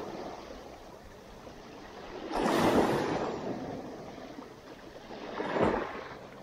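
Small sea waves washing and breaking over shoreline rocks, with one louder surge about two and a half seconds in and a shorter one near the end.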